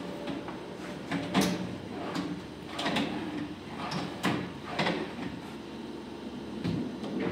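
Melamine drawer boxes sliding in and out on metal ball-bearing drawer slides: a series of short rolling slides and knocks, the loudest about a second and a half in.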